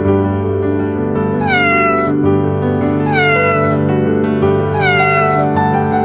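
A domestic cat meowing three times, each meow falling in pitch, about a second and a half apart, over steady background music.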